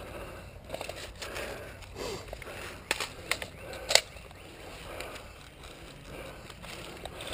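Footsteps crunching through dry leaves and brush, with irregular sharp snaps of twigs. The loudest snap comes about four seconds in.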